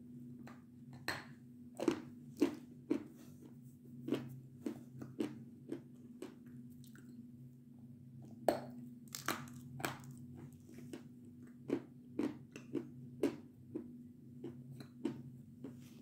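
Close-up biting and chewing of a dry white chunk of Belgorod edible chalk: a string of sharp, irregular crunches, loudest about two seconds in and again past eight seconds. A steady low hum runs underneath.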